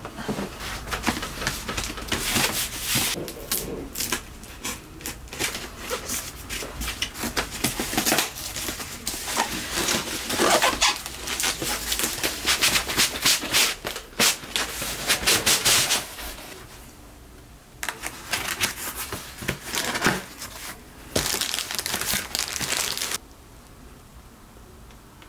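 Cardboard shipping box being opened and handled by hand: flaps and packing scraping, rustling and crinkling in a dense run of scratchy noises. The noises thin out after about sixteen seconds into scattered handling sounds with quieter gaps.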